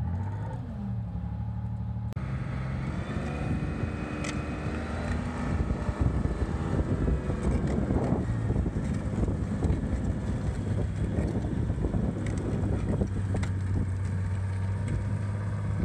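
Tracked armoured vehicle's engine running steadily, with its tracks clattering and squelching through mud as it moves. The rattling gets louder about a third of the way in.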